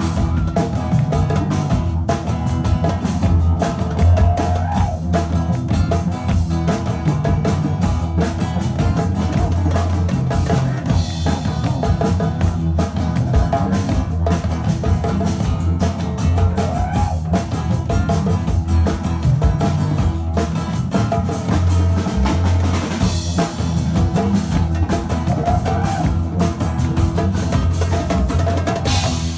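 Live band playing a steady rhythmic groove: drum kit and hand drums over double bass and guitar.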